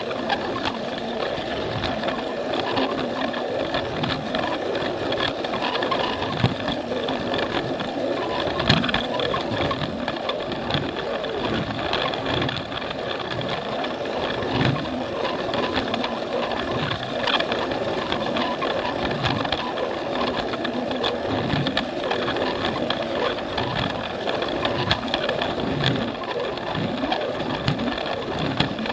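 Battery-driven Plarail toy train running on plastic track: the steady whir of its small motor and gears, with frequent irregular clicks and rattles of the wheels over the track.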